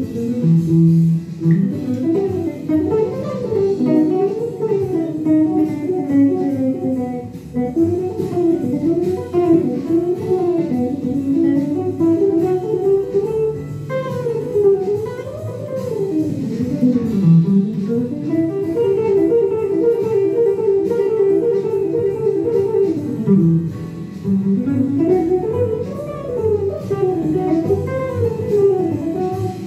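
Ibanez hollow-body archtop electric guitar playing a jazz solo: fast single-note runs that climb and fall, with a stretch of quickly repeated notes past the middle.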